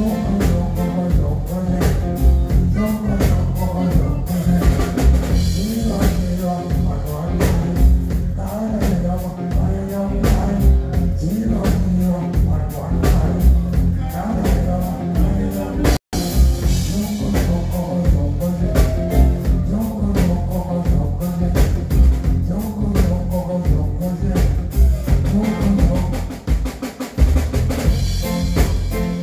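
A live reggae band plays with drum kit and bass guitar, keeping a steady beat with strong bass. The sound drops out for an instant about halfway through.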